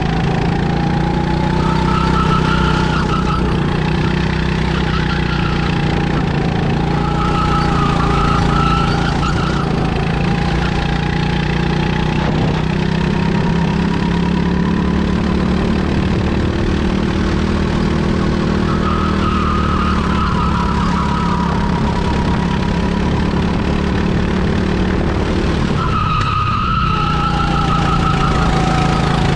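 Bizkart racing kart's engine running hard at speed, its pitch rising and falling with throttle through the corners. Near the end it drops sharply off the throttle, then climbs again as the kart accelerates out.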